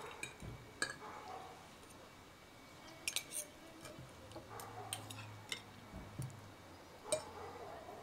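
Light clinks and taps of kitchen utensils on cookware: a handful of sharp, separate strikes, with a quick cluster a little past three seconds in.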